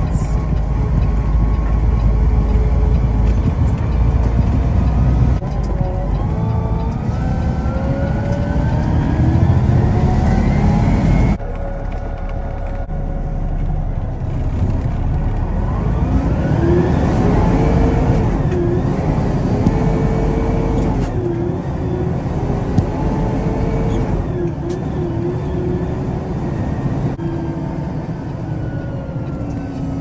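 Loaded concrete mixer truck's diesel engine, heard from inside the cab, pulling away and accelerating: the engine note climbs in pitch twice, then holds fairly steady. There is a sudden drop in level a little over a third of the way in.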